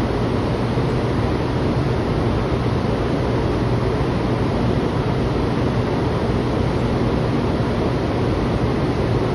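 Steady low hum and rush of air beside a Taiwan High Speed Rail 700T train standing at the platform waiting to depart, from its on-board ventilation and air-conditioning mixed with the station's air handling. The hum stays level throughout, with no movement or announcement.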